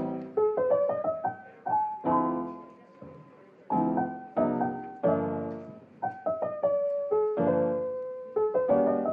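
Solo piano music: a gentle melody over chords, each struck note dying away.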